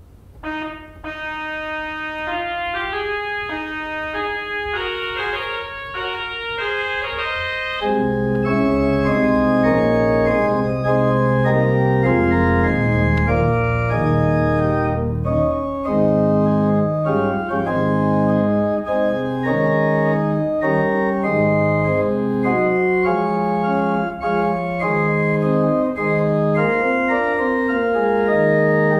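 Church pipe organ played: a line of held upper and middle notes, then about eight seconds in deep bass notes come in and the sound grows louder and fuller.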